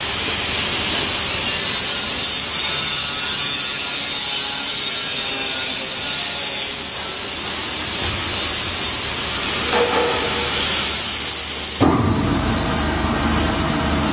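Tyre debeader machinery running with a steady, loud hissing, rasping mechanical noise. About twelve seconds in, a deeper rumble joins it.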